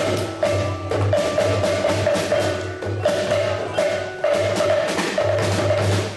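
Children's percussion ensemble of djembes and a drum kit playing a steady, fast rhythm of hand-drum strikes.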